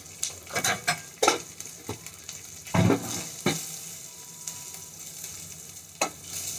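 Sliced onions frying in a hot steel kadhai with a steady sizzle, while a silicone spatula stirs and scrapes against the pan in short strokes, the loudest about three seconds in.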